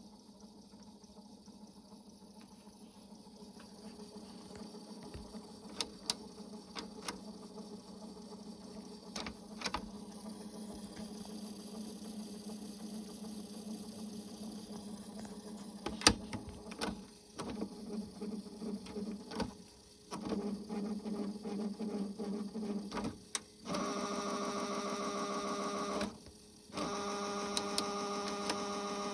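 Cassette deck's tape transport mechanism running: a steady motor hum with a few sharp clicks, then stop-start stretches, and near the end two louder steady whirring runs of about two seconds each.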